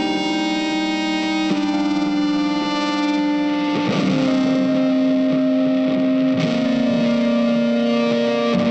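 Background music: sustained electric guitar chords with distortion and effects, changing every couple of seconds.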